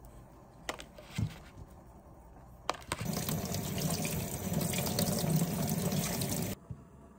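Kitchen tap running onto vegetables and cherry tomatoes in a stainless mesh colander as they are rinsed by hand. The water starts about three seconds in and cuts off suddenly near the end. Before it come a few light clicks and a soft knock as cherry tomatoes are picked from their plastic pack.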